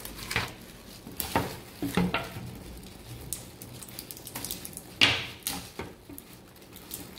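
Plastic shrink-wrap on a canvas board crinkling and rustling as it is cut with scissors and pulled off, with scattered sharp snaps and clicks, the loudest about five seconds in.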